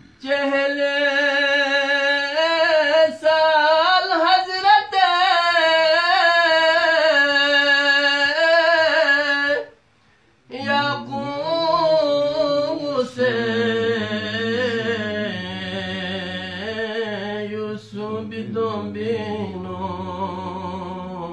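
A man singing a Balti qasida unaccompanied, in long drawn-out phrases with wavering, ornamented pitch. One long high phrase breaks off about ten seconds in, and after a short pause a second phrase follows, sung lower over a steady low hum.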